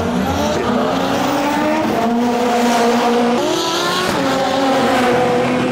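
Race car engines accelerating hard at full throttle, their pitch climbing, falling back at each upshift about two seconds and three and a half seconds in, then climbing again.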